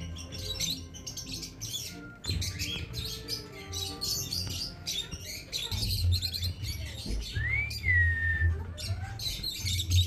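A group of caged Alexandrine parakeets chattering with many short, sharp calls, and a clear whistled note that rises then falls about seven and a half seconds in, over a low rumble.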